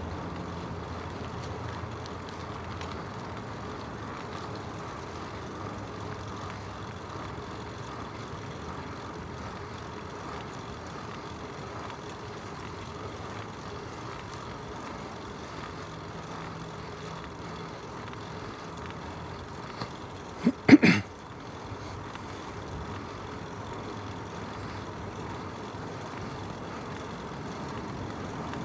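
Steady rush of wind on the microphone and road noise from a bicycle ride. About twenty seconds in comes a brief, loud cluster of sharp sounds.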